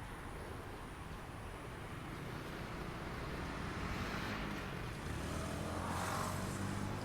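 Road traffic: a motor vehicle passing close by, its tyre noise swelling about four to six seconds in, with a low engine hum that stays on near the end.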